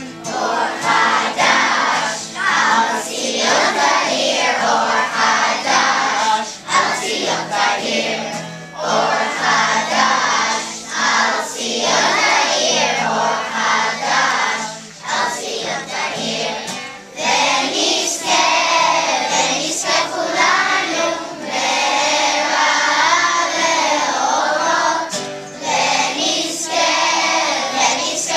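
A large group of children singing a prayer song together, led by a man singing and playing an acoustic guitar.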